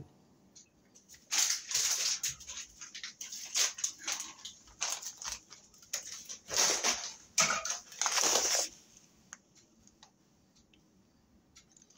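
Irregular crinkling and rustling of an aluminium foil pan being handled, in short noisy bursts with sharp crackles for about seven seconds, then it stops.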